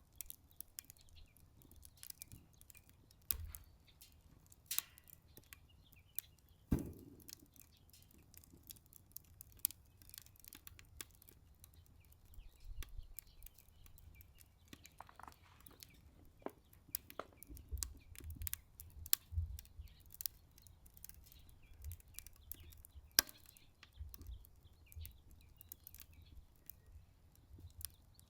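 Wood fire burning in a Solo Stove Ranger stainless-steel fire pit, crackling with irregular small pops and one louder knock about seven seconds in. A low rumble from wind runs underneath.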